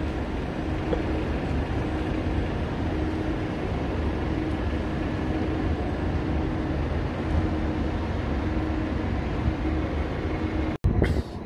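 Bus engine running steadily with a low rumble. The sound cuts out abruptly near the end and comes back quieter after a brief burst.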